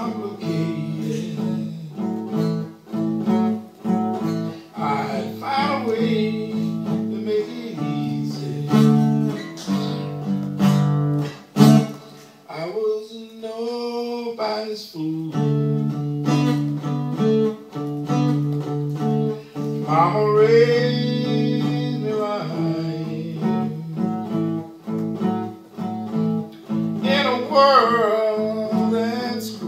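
Blues played on guitar, with a voice singing drawn-out, wavering lines now and then over the steady guitar notes.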